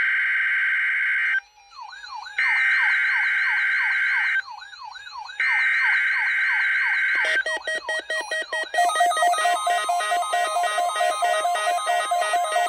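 NOAA Weather Radio EAS/SAME digital header, three screeching bursts of data tones encoding a Required Weekly Test, with a warbling siren-like tone in the gaps between them. About seven seconds in, a harsh pulsing alert alarm takes over and keeps going.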